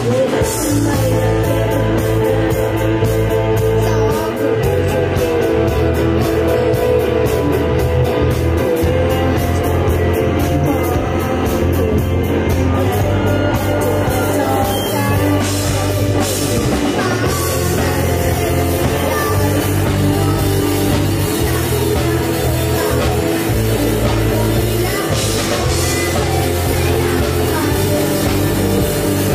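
A youth rock band playing a song: electric guitar and drum kit, with a boy singing lead.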